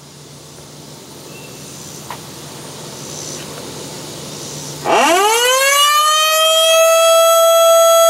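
Low background noise, then about five seconds in an electromechanical outdoor warning siren starts winding up: its pitch rises quickly and levels off into a loud, steady tone.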